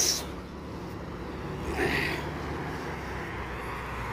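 Steady low rumble of a nearby car engine running, with a brief louder noise about two seconds in.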